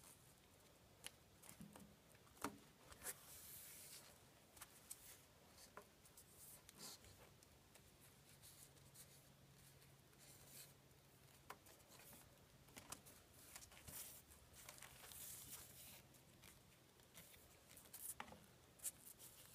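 Near silence: faint rustles and scattered light ticks of hands rolling a wooden dowel onto a strip of electrical tape on a cloth-covered table, over a faint steady low hum.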